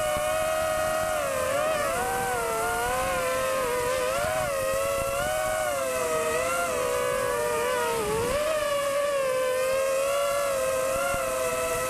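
Sunnysky 2204 2300kv brushless motors on an FPV mini quadcopter, spinning GemFan 5030 props, heard from the craft itself: several close whining tones that rise and fall together with the throttle, over a steady rush of prop wash and wind. The pitch dips briefly about eight seconds in.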